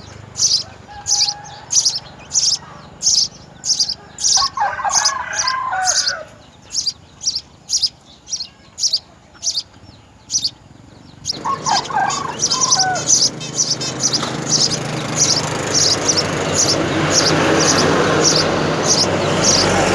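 Sparrow chirping over and over in a steady rhythm, about two to three short high chirps a second, pausing briefly about ten seconds in. Lower bird calls come in twice, and a background hiss builds in the second half.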